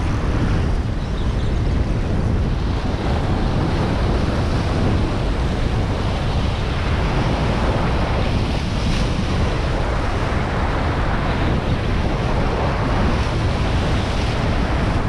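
Sea surf washing and surging against a rocky shore, with steady wind buffeting the microphone as a low rumble.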